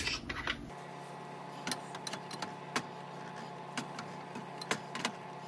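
Scattered light clicks and taps of a utensil against a food container and bowl as pulled pork is dug out and portioned, over a faint steady hum.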